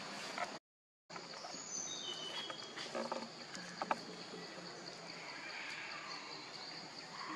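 Outdoor forest ambience with a steady high insect drone, a few short high chirps and a couple of sharp clicks. The sound drops out completely for about half a second near the start.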